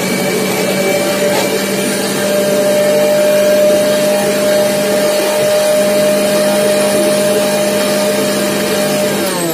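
Electric mixer grinder running steadily with a loud whine, grinding soaked urad dal into a thick paste. Near the end it is switched off and the whine falls away as the motor winds down.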